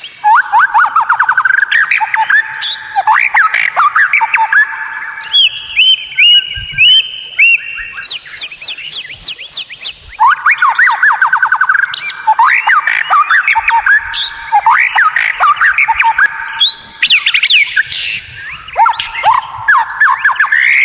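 White-rumped shama (murai batu) singing continuously and loudly: rapid runs of quick sweeping notes, with the phrases changing every second or two.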